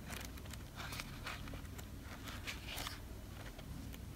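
Soft, scattered rustles and flicks of paper as the pages of a tarot guidebook are leafed through, faint over a low steady room hum.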